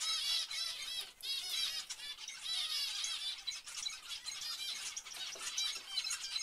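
A flock of zebra finches calling continuously, many short, high calls overlapping each other several times a second.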